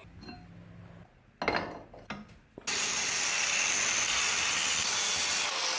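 A power tool grinding steadily, starting abruptly about two and a half seconds in, after a single metal clank about a second and a half in.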